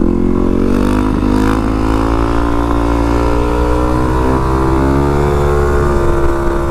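Yamaha WR450F supermoto's single-cylinder four-stroke engine pulling under way, its note rising over the first second and then holding nearly steady with a slow climb.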